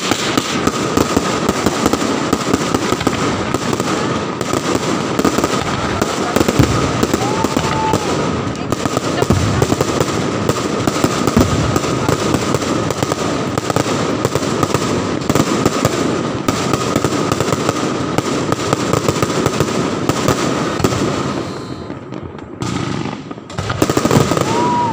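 New Year fireworks and firecrackers going off without pause: a dense, rapid crackle of bangs that thins out a few seconds before the end, with a steady high tone underneath.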